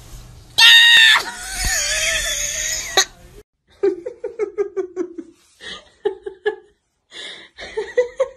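A loud, high, wavering cry lasting about two seconds, then a person laughing in quick rhythmic bursts, in two bouts.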